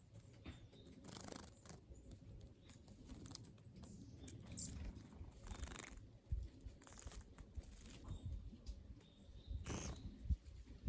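Small wild birds at a garden bird bath: faint fluttering and splashing, several short bursts a second or more apart, with one brief high chirp about four and a half seconds in.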